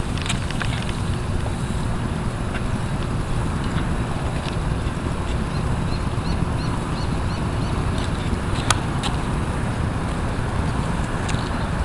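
Wind buffeting the microphone, a steady low rumble, with a few scattered clicks, one sharp click near the end, and a short run of faint high chirps in the middle.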